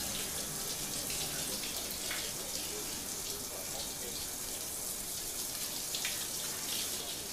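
Steady hiss of water running from a tap.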